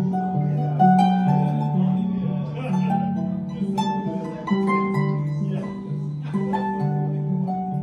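Solo harp playing: plucked strings ringing, a melody over a low bass line that steps back and forth in a repeating pattern.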